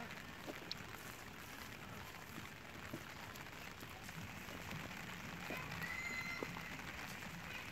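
Soft squishing and faint clicks of a wet fish-bait mash being kneaded and pressed by hand, over a steady outdoor hiss.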